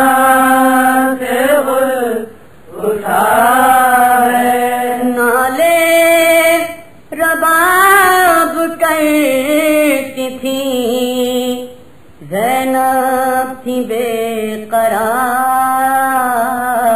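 A man singing an Urdu noha, a mournful Shia lament, in long drawn-out phrases with held, wavering notes. The phrases break off briefly about every five seconds.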